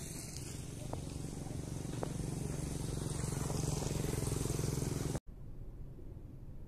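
Low rumble and steady engine drone of a passing train, growing louder over about four seconds, then cut off suddenly about five seconds in, leaving quieter outdoor background noise.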